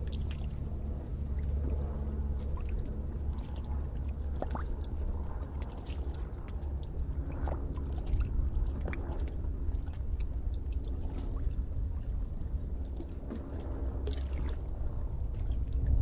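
Lake water bubbling and gurgling at the shoreline, with many small irregular pops and splashes over a steady low rumble.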